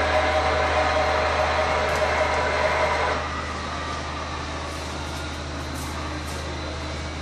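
HO-scale model freight train of double-stack container well cars rolling past on the track, a steady running rumble with a whine in it. It drops off about three seconds in as the cars pass, leaving a lower steady hum.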